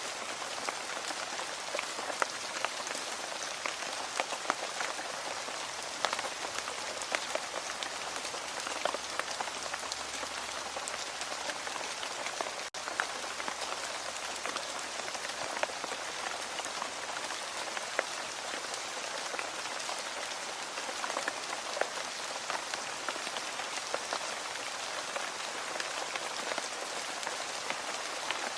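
Steady rain falling on a surface: a dense, even hiss with individual drops ticking through it, and a momentary break about halfway through.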